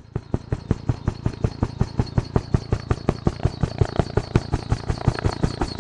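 Helicopter with a two-bladed main rotor coming in low, its blades beating about six times a second over a steady high whine.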